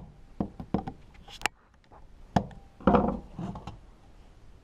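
Flathead screwdriver prying at the plastic tabs of a car climate control unit's housing: a string of sharp clicks and knocks, then a couple of heavier thumps about three seconds in as the unit is handled on the bench.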